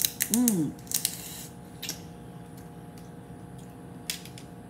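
Boiled crawfish eaten close to the microphone: a short hummed 'mm' from the eater, a slurping suck at the shell about a second in, and a few small shell clicks and cracks later on.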